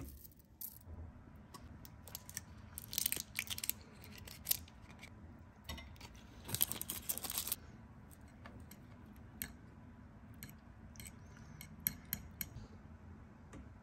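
Metal spoons clicking and clinking against a glass mixing bowl while spices and cheese are added to beaten eggs and the mixture is stirred. The clinks come irregularly, with two dense runs of rapid clicks, the second about halfway through, and scattered single taps near the end.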